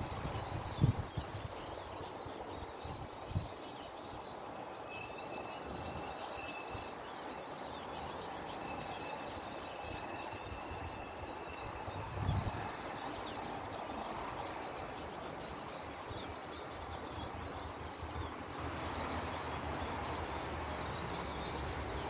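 Small songbirds chirping and twittering steadily over a faint outdoor background. A thin, steady whistle-like tone sounds twice in the middle, and there are a couple of low thumps, one near the start and one about halfway through.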